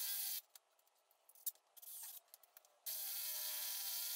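Ryobi cordless drill with a masonry bit boring into a concrete slab, a steady grinding hiss with a faint motor whine. It stops about half a second in, leaving only a few small clicks, then starts drilling again a little under three seconds in.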